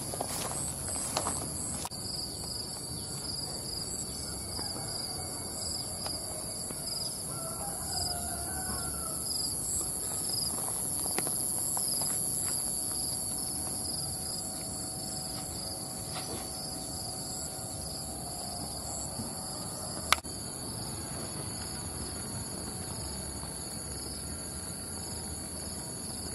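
A steady chorus of insects chirring, several high unbroken tones with a faint pulsing in some of them. There are a few footsteps in the first couple of seconds and a single sharp click about 20 seconds in.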